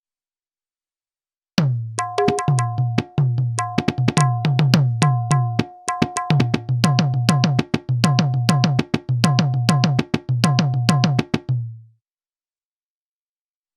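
Sampled Indian hand-drum pattern from the SwarPlug 4 VST, starting about a second and a half in and stopping just before the end: quick sharp strokes over a deep ringing bass stroke and a ringing high pitched stroke.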